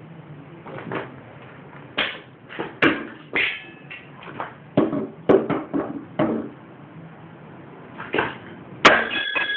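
Irregular metal knocks and clanks of hand tools working at a lawn mower engine's bolts, with two short metallic rings, one about a third of the way in and one near the end.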